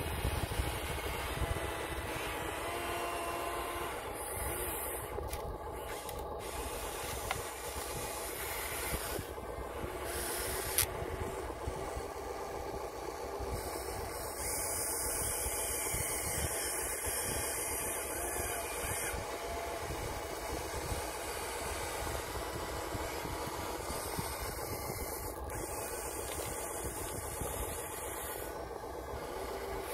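Remote-control toy excavator working its arm, bucket and swing: a steady motor and gear whir whose pitch shifts each time a different motion starts or stops.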